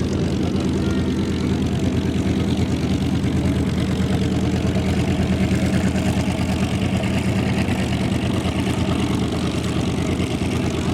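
Propeller aircraft's piston engine running steadily, a low drone holding an even pitch throughout.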